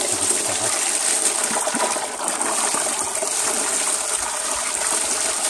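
Well water pouring steadily from a hose into a plastic basin that is already part full, flowing strongly, while a hand swishes and splashes in the water.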